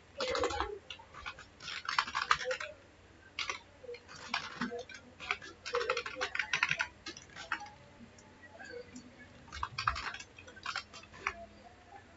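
Computer keyboard typing in short flurries of key clicks, with a pause of about two seconds past the middle.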